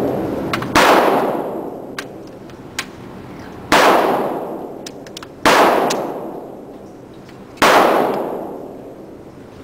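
Four gunshots, a few seconds apart, each with a long echoing decay. Faint short clicks fall between the shots.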